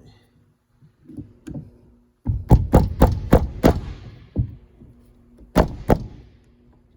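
A quick run of about seven sharp knocks in a second and a half, then two more a few seconds later: a tool tapping or knocking on the shifter parts and clips during a short shifter install.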